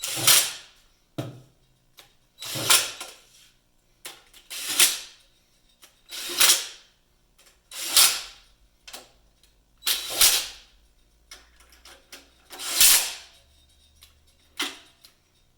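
A power tool running down the oil pan bolts on a Dodge 4.7 V8 one at a time, in seven short bursts about two seconds apart.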